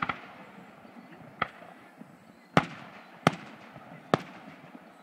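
Aerial firework shells bursting in the sky: five sharp bangs, one at the very start, then four more roughly a second apart, each with a short echoing tail.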